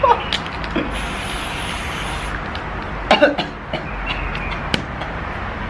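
Aerosol spray paint can hissing in one continuous spray that stops abruptly a little over two seconds in. About three seconds in there is a short cough, followed by a few sharp ticks.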